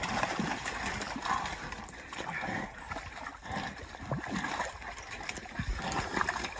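Mud and shallow water splashing and sloshing as catch dogs struggle with a wild hog pinned in a swamp, with animal noises mixed in.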